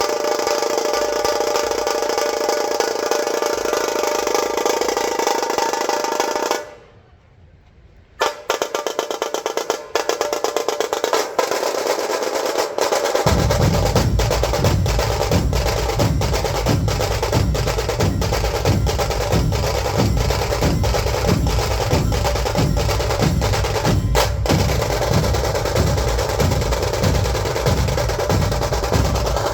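Dhol-tasha drum ensemble: the tasha snare drums play a fast, dense roll, break off suddenly about a quarter of the way in, then resume with sharp rapid strokes. About halfway through, the big barrel-shaped dhol drums come in with a heavy steady beat under the tashas.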